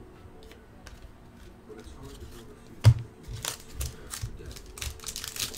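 A foil trading-card pack wrapper crinkling and tearing as it is opened by hand, the crackling thickening over the last couple of seconds. There is a single sharp tap about three seconds in.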